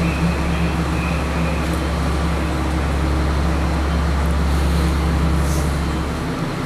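Steady low rumble of vehicle engines and street traffic, with a faint steady hum above it; the deepest part of the rumble drops away near the end.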